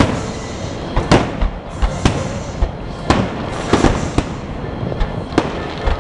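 Aerial fireworks shells bursting: about seven sharp bangs at irregular intervals, roughly one a second, over a steady background rumble.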